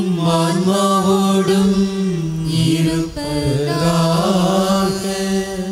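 Liturgical chant sung slowly in long held notes, in two phrases with a brief break about three seconds in. It is the sung reply to the priest's opening greeting at Mass.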